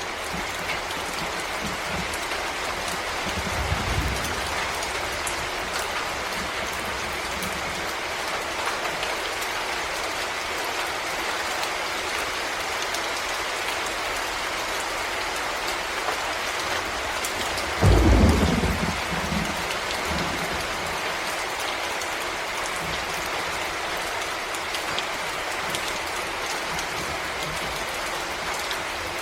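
Steady rain falling in a forest, an even hiss of drops. A brief low rumble comes about four seconds in, and a loud, sudden low boom about eighteen seconds in fades over a second or two.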